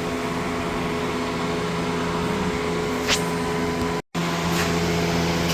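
The 6.5L V8 diesel of a 1995 Chevy 3500 runs steadily just after a hard cold start, held on the throttle to keep it from stalling. The sound cuts out for a split second about four seconds in.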